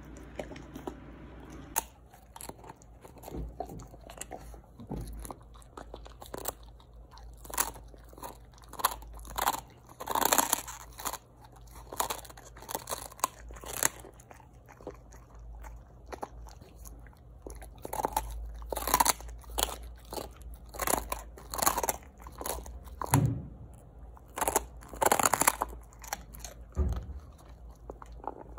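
A husky gnawing and crunching a hard treat held between its paws, with many sharp, irregular crunches.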